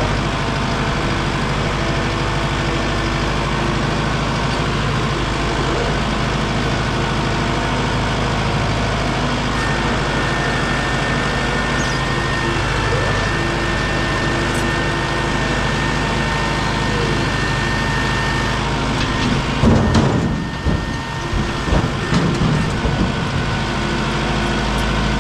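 A tractor's diesel engine running steadily at a constant speed. About twenty seconds in there is a brief burst of uneven knocks and thumps.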